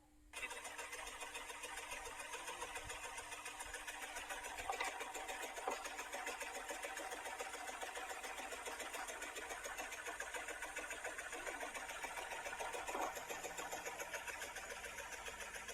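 Home-built scroll saw switched on about half a second in, then running steadily with a fast, even clatter of its reciprocating blade mechanism, with a few louder knocks along the way.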